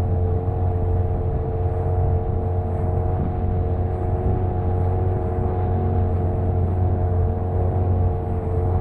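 Inboard engine of a small wooden boat running at a steady cruising speed, with a constant low drone and no change in pitch.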